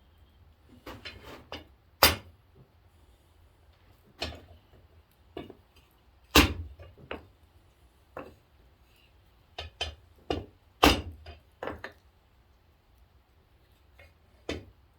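Wooden mallet striking a hot, twisted steel poker handle to straighten a crooked spot: about a dozen separate blows, irregularly spaced, some in quick pairs.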